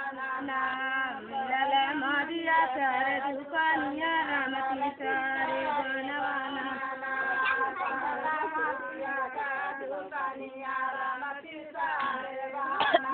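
Women's and girls' voices singing a song together, the melody running on in long wavering phrases with short breaks between them.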